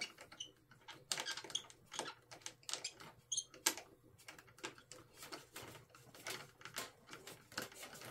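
Faint, irregular clicks and ticks of a small hand screwdriver driving a screw into the plastic tail mount of a foam RC plane, a few per second.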